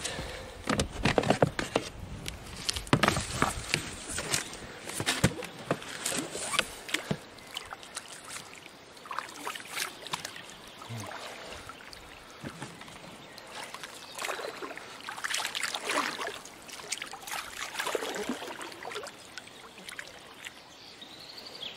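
An inflatable rubber boat being rowed: oar blades splashing and sloshing in the water in irregular strokes, with water trickling off them, busier and louder in the first several seconds.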